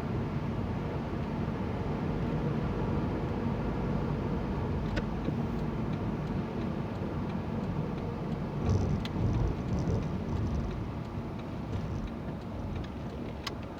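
Car driving, heard from inside the cabin: a steady engine and road rumble that swells louder about two-thirds of the way through, with a few faint clicks.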